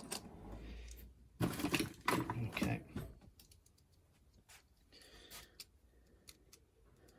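Rummaging in a drawer for a knife: metal tools clattering and rattling for the first three seconds or so, then a few faint scattered clicks.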